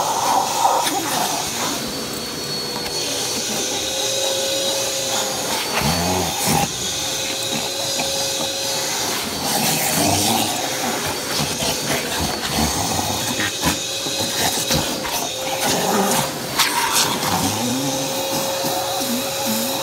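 Shop vac running steadily, its hose nozzle worked over the Great Danes' heads and fur, with a whine in its rush of air that now and then drops out and comes back.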